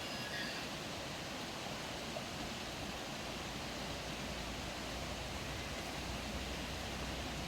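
Steady, even rush of a stream flowing.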